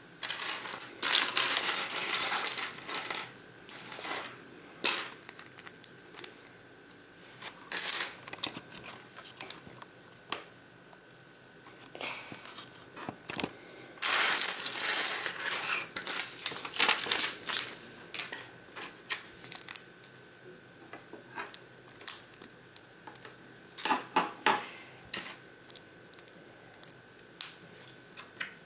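Loose plastic Lego pieces clattering and rattling on a table as hands rummage through them. There are two long stretches of clatter, near the start and about halfway through, with scattered single clicks of pieces being picked up and set down in between.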